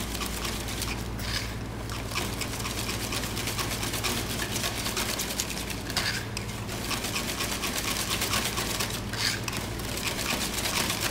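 Metal balloon whisk beating pancake batter in a plastic bowl: a rapid, steady clicking of the wires against the bowl with a wet sloshing, as flour, eggs and milk are mixed into a smooth, lump-free batter.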